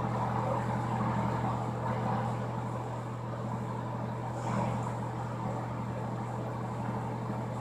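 Steady low hum with an even hiss from a running ventilation fan.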